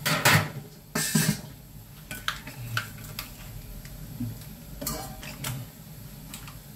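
Kitchen handling sounds: two louder clatters of metal cookware in the first second and a half, then lighter clicks and rustles as a vacuum-packed block of minced beef is cut open with scissors over a stainless steel plate.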